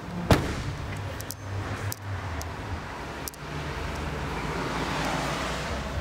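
The BMW M235i's boot lid shutting with one loud thump just after the start, followed by a steady low hum and a few light knocks.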